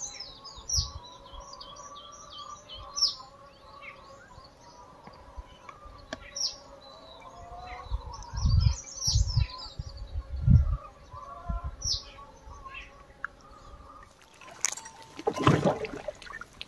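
Small wild birds chirping and calling over and over. Several low, loud rumbling thumps come through the middle, and there is a brief noisy burst near the end.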